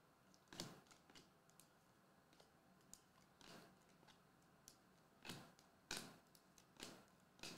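Faint swishes and clicks of glossy Mosaic soccer trading cards being slid one behind another in the hand as they are flipped through, about six strokes spaced irregularly.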